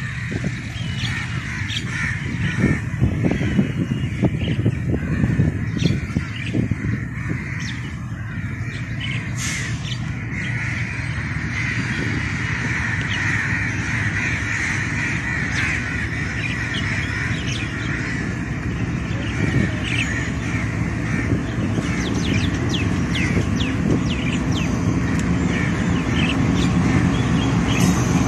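Birds calling and chirping in the trees over a low diesel rumble that slowly grows louder as a Pakistan Railways GEU-40 diesel locomotive draws near; the engine's drone is plainest near the end.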